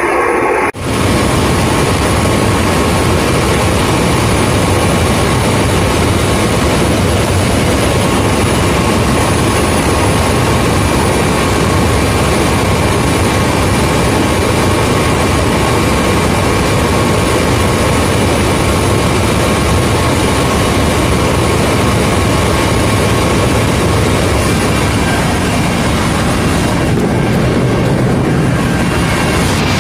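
Helicopter engine and rotor noise heard inside the cabin in flight: a loud, steady rush over a low hum, unbroken after a brief dropout under a second in.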